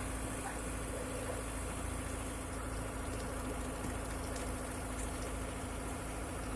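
Diesel engine of a concrete mixer truck running steadily at a low, even speed.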